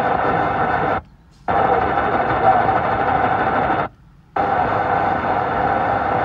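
Car radio on the AM band giving a steady hiss of static, broken twice by half-second mutes as the tuner steps to the next frequency.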